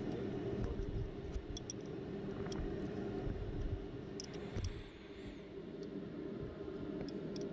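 Ring spanner on the nut of a new timing-belt tensioner on a VW 2.0 TDI engine, being done up snug and backed off: a few light metallic clicks and taps over a steady low hum.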